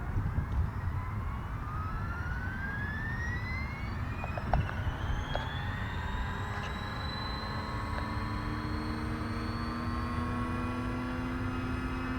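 Battery-electric RC scale helicopter (Airwolf) spooling up for takeoff: a whine rising steadily in pitch for about six seconds, then levelling off. A steady lower rotor hum joins near the end, and there is one sharp click about four and a half seconds in.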